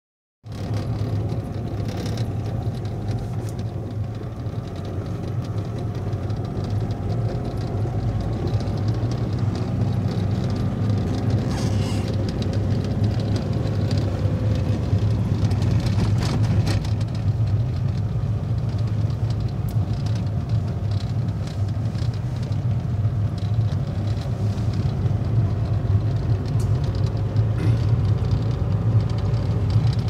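Car interior noise while driving: the engine and tyres make a steady low hum, with a few sharp clicks and knocks from the road along the way.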